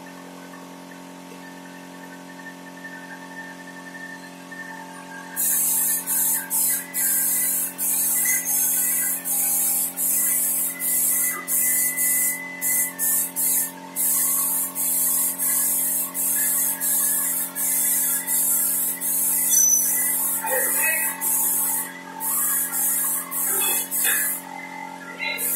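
Compressed-air spray gun spraying PU/melamine wood polish: a high-pitched hiss in many short bursts, about one a second, as the trigger is pulled and released, starting about five seconds in. A steady hum and faint music run underneath.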